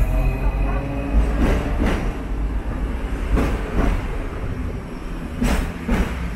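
Hong Kong double-decker electric tram running along its street track: a steady low rumble, with the wheels clacking in pairs over rail joints, three pairs about two seconds apart.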